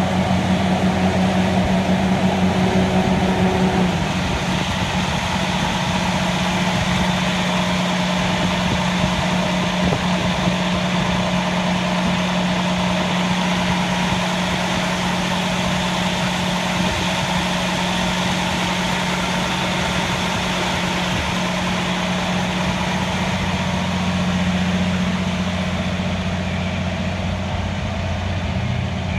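Fire engine's motor running steadily with a low hum, over a broad wash of noise; the tone and level drop slightly about four seconds in.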